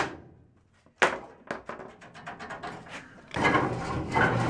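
A sharp metal knock about a second in, followed by a run of quicker, fainter ticks that die away; then, from just past three seconds, a steady scraping rattle as a steel emergency-brake cable tube is twisted and worked loose with pliers in the frame of a 1964 VW bus.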